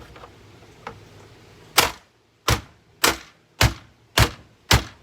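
Hammer blows on a Hoover vacuum cleaner, a steady run of six sharp strikes about two a second, starting a little under two seconds in.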